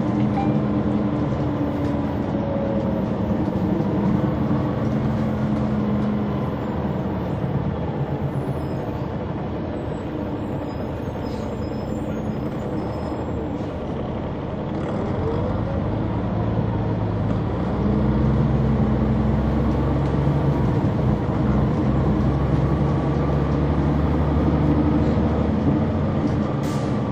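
Heard from inside the cabin: a 2004 Neoplan AN459 articulated transit bus's Caterpillar C-9 ACERT diesel engine running under way. It pulls harder near the start, eases off through the middle, and works hard again from about two-thirds of the way through.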